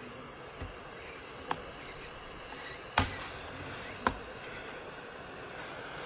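Steady hiss of a corded hot-air heat gun working on a laptop keyboard's metal backplate, broken by three sharp clicks, the loudest about three seconds in.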